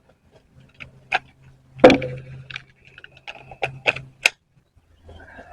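Scattered metallic clicks and clanks of tools and sockets being handled, about seven separate knocks with the loudest, briefly ringing one about two seconds in, over a faint steady low hum that stops a little after four seconds in.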